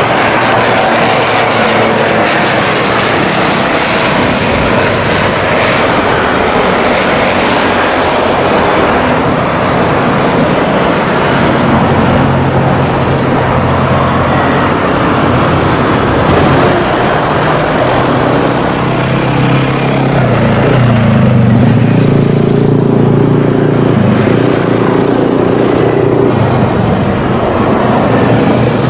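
Twin turboprop engines of a CASA/IPTN NC-212-200 Aviocar, Garrett TPE331 turboprops, running at high power through the takeoff. A steady, loud noise with a deeper engine hum that grows strongest about two-thirds of the way through.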